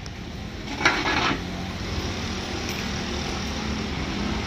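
A knife cutting through pineapple rind: one sharp, scraping stroke about a second in that lasts about half a second, over steady street traffic hum.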